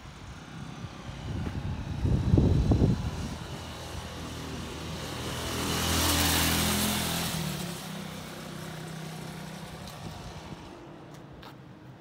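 A passing road vehicle, its engine and tyre noise swelling to a peak about six seconds in and then fading. Before it, about two seconds in, a loud low burst of wind buffets the microphone.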